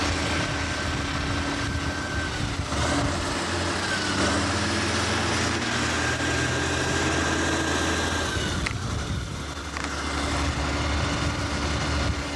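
Diesel engines running steadily: a farm tractor idling close by, with a fire engine driving past partway through, its engine note shifting as it goes by.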